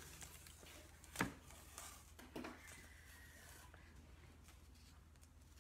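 Faint handling noise as a chalk transfer is peeled off a painted box frame, with one sharp click about a second in and a few softer ticks after it.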